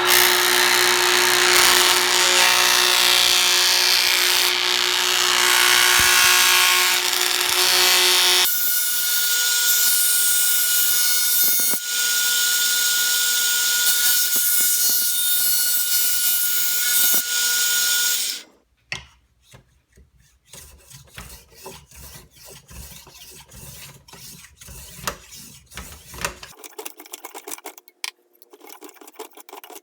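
A power tool running loud and steady with a motor whine as it works a small repair piece; its tone changes about eight seconds in and it stops abruptly after about eighteen seconds. Light clicks and taps of handling follow.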